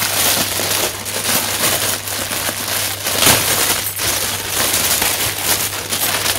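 Clear polythene packaging crinkling and crackling as it is pulled open and slid off a pair of fabric drawer organisers, a continuous run of sharp rustles.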